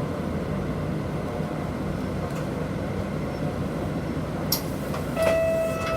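Inside a Nishitetsu city bus: steady low engine and road rumble. A sharp click comes about four and a half seconds in, and a steady electronic tone starts near the end.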